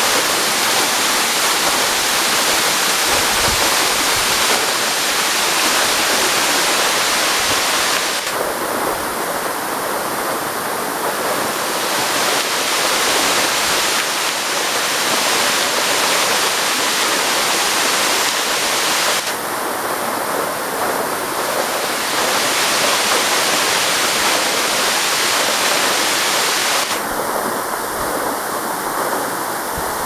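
Waterfall pouring down a rock face: a steady, loud rushing hiss of falling water. Its higher part thins for a few seconds three times.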